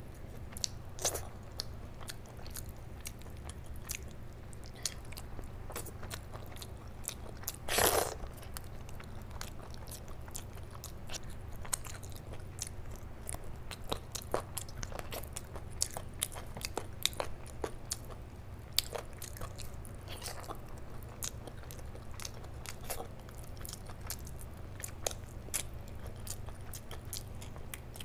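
Close-miked eating of chicken curry and rice by hand: chewing and biting with many small wet mouth clicks, and hands pulling chicken pieces apart. One louder noise, about half a second long, about eight seconds in; a steady low hum underneath.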